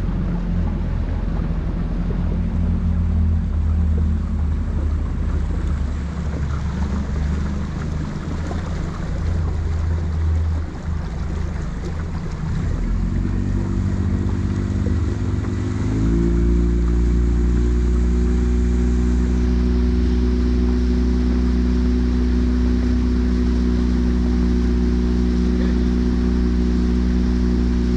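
Small motor boat's engine running, stepping up to a higher, steadier note and getting louder a little past halfway, with wind buffeting the microphone.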